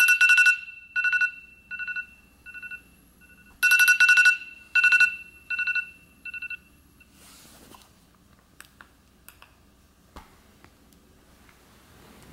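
iPhone alarm ringing: two rounds of rapid pulsing beeps, each round fading as it goes, stopping about six and a half seconds in when it is silenced. A short rustle and a few light clicks follow.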